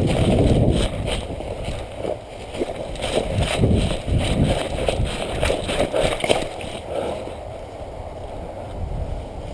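Footsteps and rustling through leaves and brush as a player moves, with irregular clicks and scuffs and a low rumble of wind and handling on the microphone; quieter after about seven seconds.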